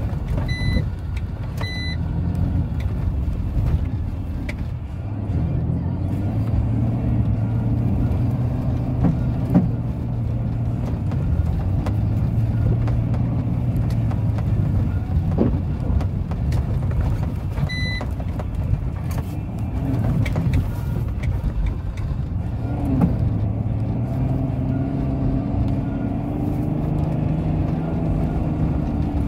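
BMW X3 E83's 3-litre straight-six diesel engine running under way, heard from inside the cabin over tyre noise on snow; its note shifts up and down in the last ten seconds. Three short electronic beeps sound, two in the first two seconds and one about 18 seconds in.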